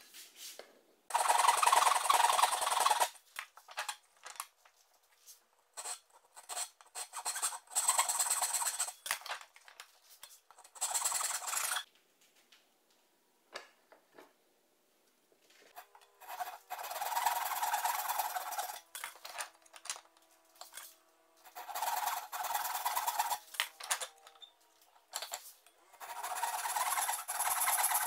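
Hand plane run on its side along a shooting board, shaving the end of a small wooden block. It goes in about six bursts of rapid strokes, each one to three seconds long, with pauses between them.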